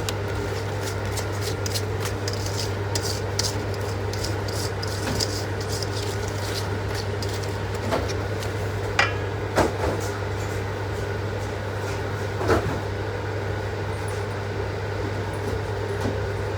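Kitchen work over a steady hum: many light clicks, then a few sharp knocks of things being handled.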